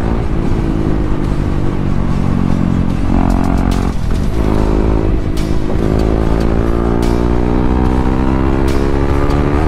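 Motorcycle engine under way, its revs falling off for the first few seconds, then after a gear change about six seconds in climbing steadily as the bike accelerates, over a low wind rumble.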